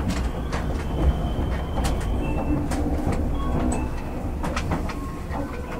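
Ride sound inside a Tobu 200 series limited-express motor car, rebuilt from a 1720 series DRC car: a steady low running rumble with sharp wheel clicks over the rails and a few brief, faint high-pitched squeals. It grows slightly quieter toward the end.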